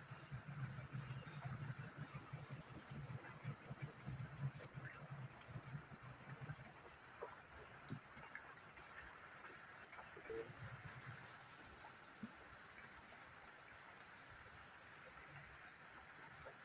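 A steady, high-pitched insect chorus in the forest, which steps up in loudness about eleven seconds in.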